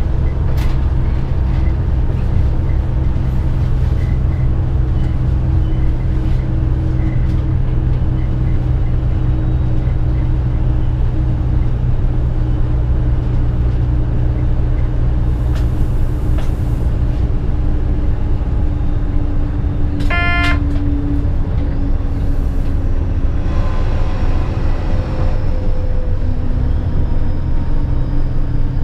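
Stadler Regio-Shuttle RS1 (BR 650) diesel railcar running at speed, heard from the driver's cab: a steady low engine and drive drone over running noise on the rails. A short beep-like tone sounds about two-thirds of the way through.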